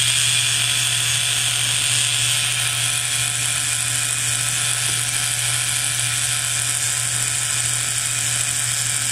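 Small battery-powered K'nex motor running with a steady whir, driving the shredder's plastic tread conveyor track through its gears.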